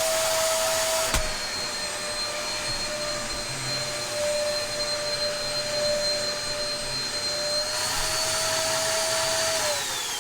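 Dyson DC03 upright vacuum cleaner running with a steady high motor whine, a bit noisy; a click about a second in, then near the end it is switched off and the whine falls away as the motor winds down. The machine has a replacement motor fitted.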